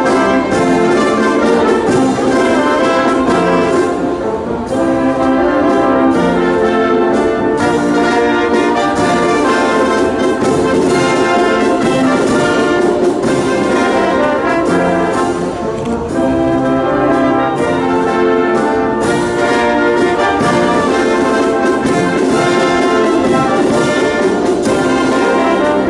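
Music led by brass instruments, playing loudly and without a break.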